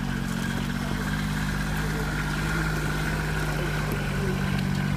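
An engine running steadily at one pitch, a low, even drone.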